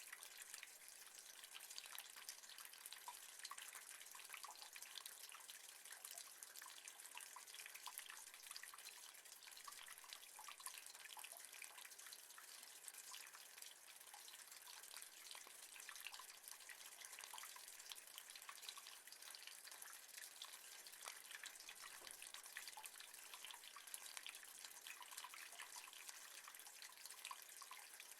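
Rain falling on metal: a faint, steady spatter of many small drop ticks.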